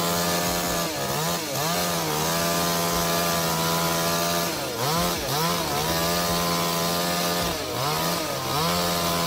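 Two-stroke chainsaw running at high speed, cutting wood. Its engine note dips sharply and climbs back three times, about a second in, near the middle and near the end.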